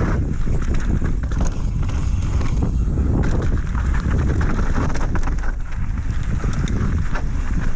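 Mountain bike descending fast over rough dirt singletrack: a steady low rumble of wind on the microphone and tyres on the dirt, with frequent rattles and knocks from the bike over the bumps.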